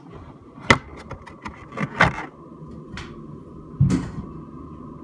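Several sharp knocks and clicks as something bumps the housing of a running centrifugal exhaust fan, the loudest about a second in, at two seconds and near four seconds. The fan's steady hum runs underneath.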